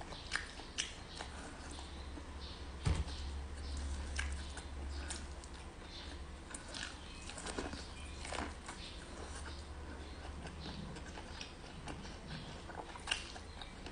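Close-up chewing and biting of boiled white and purple corn on the cob, with many small crisp clicks of kernels scattered through. A single louder thump comes about three seconds in.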